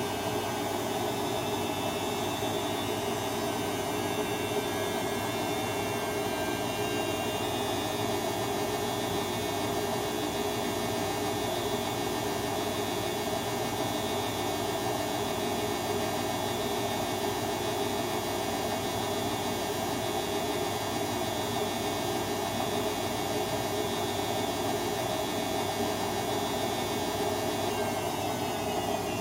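Bosch washing machine running, a steady motor hum with a whine on top. The whine shifts in pitch about seven seconds in and glides again near the end as the drum speed changes.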